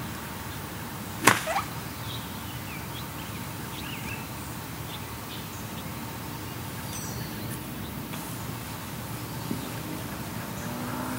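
Golf iron striking a golf ball in a chip shot off grass: one sharp click about a second in, with a couple of fainter knocks just after. Birds chirp faintly in the background.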